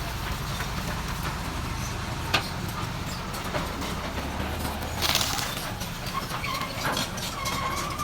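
Heavy diesel machine running with a steady low rumble, a sharp knock about two seconds in and a loud burst of hiss about five seconds in, after which the rumble drops away. A few short, higher tones sound near the end.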